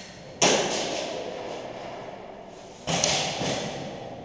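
Airsoft gunfire in an exchange of shots, with BBs smacking into the plywood walls. It comes as two sudden loud bursts, about half a second and three seconds in, each a clatter of hits that tails off over a couple of seconds.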